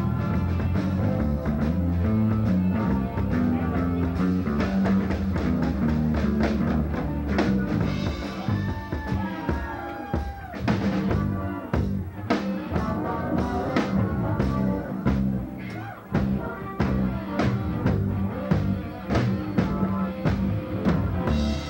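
Rock band playing live on drum kit and guitar, with a steady heavy low end and regular drum hits. About halfway through, a few sustained notes bend up and down in pitch.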